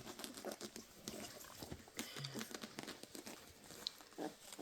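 Week-old Great Dane puppies stirring in the whelping bed: soft rustling and small smacking clicks, with a short low grunt about halfway and a brief high squeak near the end.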